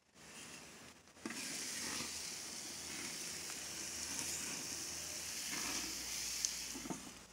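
Chicken breasts sizzling on the hot grates of a Char-Broil Grill2Go X200 gas grill, a steady hiss that starts suddenly about a second in as the lid is lifted, with a sharp tick near the end.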